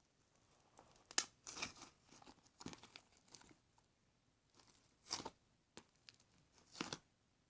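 Hands squishing and pulling slime, giving several short crackling, crunching squelches with pauses between them.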